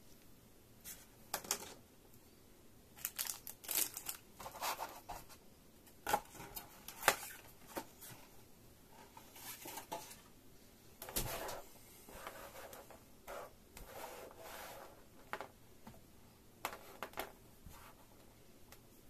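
Irregular handling noise from gloved hands working with in-ear earphones, their silicone ear tips, cable and plastic packaging: scattered rustles and crinkles with light clicks and taps, the sharpest click about seven seconds in.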